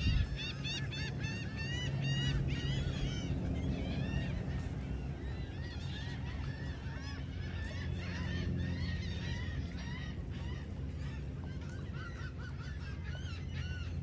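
A flock of gulls calling: many short, arched squawks overlapping, thickest in the first few seconds, over a low steady rumble.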